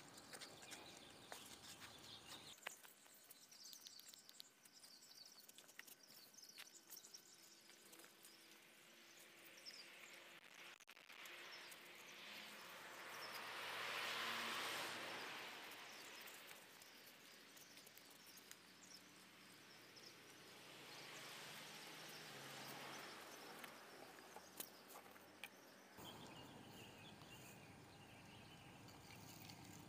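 Faint outdoor ambience with scattered small high chirps. A soft rushing noise swells and fades about halfway through, and again more weakly later.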